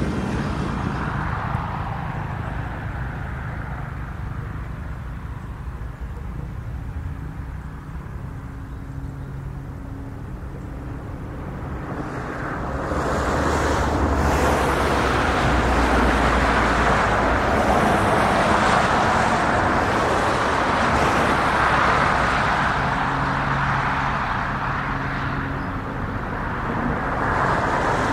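A car driving away along a street, fading, then an abrupt change to a louder steady rushing sound with the low hum of a diesel locomotive approaching, growing louder near the end.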